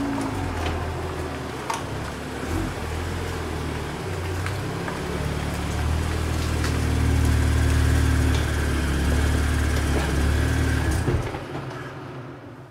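BMW M2 (F87) with its 3.0-litre turbocharged straight-six running at low speed as the car creeps forward. The engine gets louder as it comes close, then stops about eleven seconds in.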